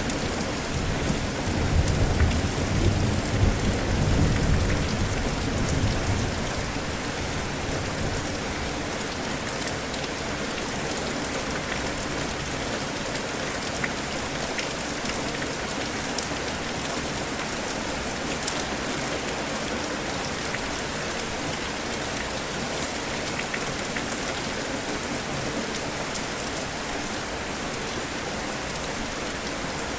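Steady rain falling on a surface, an even hiss of drops, with a low rumble of thunder swelling and fading over the first several seconds.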